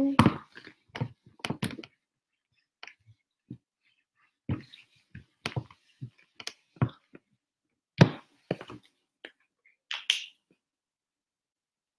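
Short taps and rubbing knocks of a whiteboard eraser wiping against the board, packed close together for the first two seconds. Then sparse single knocks and clicks as small objects are handled.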